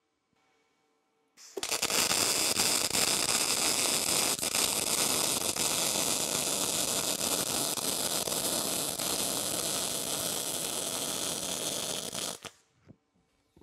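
Wire-feed welder laying a continuous bead, welding a steel hub to a steel plate: the arc starts about a second and a half in, runs steadily with a dense crackle for about eleven seconds, and cuts off abruptly about a second before the end.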